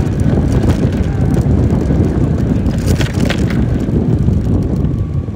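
Wind rushing over the microphone of a moving motor scooter, with engine and road rumble underneath. A woman's voice talking is largely drowned out by it.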